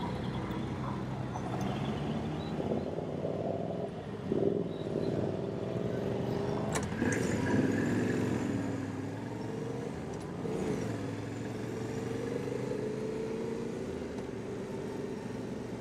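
Motorcycle engine, a Yamaha Ténéré 700 parallel twin, running at low speed through a parking area, its pitch rising and falling as the throttle opens and closes. There is a sharp click about seven seconds in.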